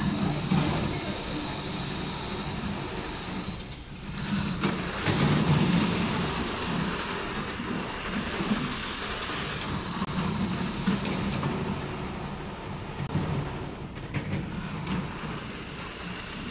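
Bottle feeding table and slat-chain conveyor running, with empty plastic jerrycans sliding and bumping against each other and the guide rails: a continuous rattling mechanical noise that briefly drops about four seconds in.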